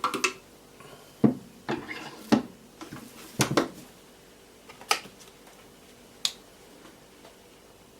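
Irregular clacks and knocks of Wicked Edge diamond stones and their arms being handled and swapped, a quick cluster over the first four seconds, then two single clicks about five and six seconds in.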